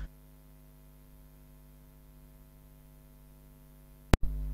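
Faint steady electrical mains hum with no other sound, then a single sharp click about four seconds in, after which the hum comes back louder.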